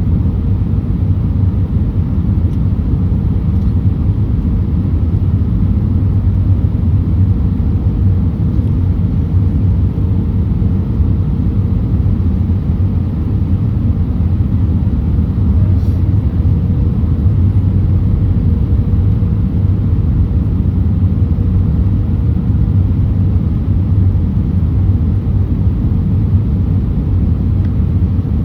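Airbus A319 cabin noise: a steady low rumble of engines and airflow, with a faint steady hum above it.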